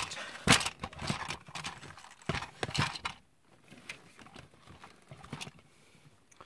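Hard plastic clacks and knocks from a Big Blastin' Rocket Raccoon action figure being handled and stood back down, a few sharp ones in the first three seconds and fainter ticks after.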